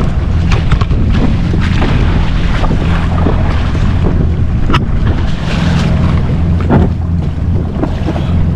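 Jet ski engine running with a steady low hum, under wind buffeting the microphone and water noise. Scattered clicks of handling, one sharp one near the middle.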